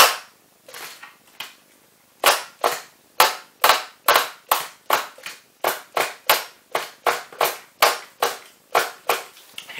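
Pull starter on a 1/16-scale nitro RC car's glow engine yanked over and over, about two to three quick, sharp pulls a second from about two seconds in. The engine turns over but does not fire.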